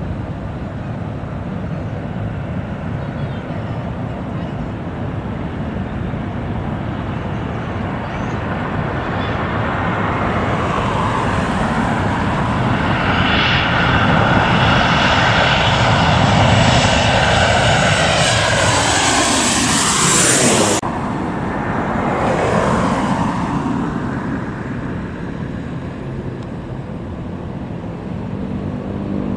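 Jet airliner passing close by: the engine noise builds into a loud whining rumble, and its pitch falls as the plane goes past. The high part cuts off sharply about twenty seconds in and the rumble fades away.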